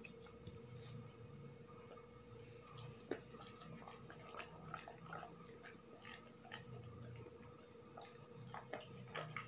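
Labrador retriever chewing a piece of soft boiled food, faint irregular clicks and smacks of its mouth.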